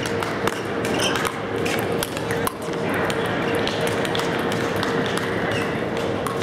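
Table tennis ball clicking off sandpaper-faced paddles and the table in a rally, a sharp tap every half second to second, over a murmur of voices.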